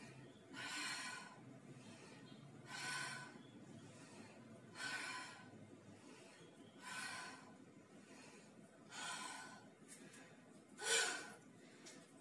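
A woman's hard exhales through the mouth during squats, one about every two seconds, six in all. The last, about eleven seconds in, is the loudest.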